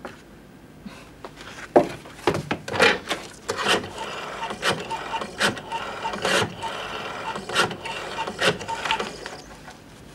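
Rotary-dial desk telephone being dialled: the dial is turned and whirs back again and again, a run of clicks and short whirrs from about two seconds in until near the end.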